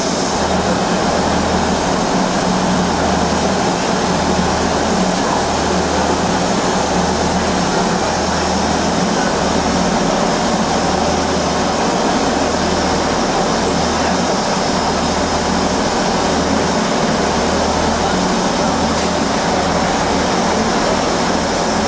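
BR Standard Class 7 'Britannia' steam locomotive No. 70013 Oliver Cromwell standing with steam escaping around its cylinders and driving wheels: a loud, steady hiss, with a low rumble that comes and goes.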